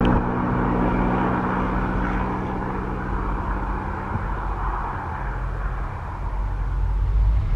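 TasRail diesel locomotives of an approaching freight train, heard before they come into view: a steady low engine drone, with a deeper rumble growing louder near the end.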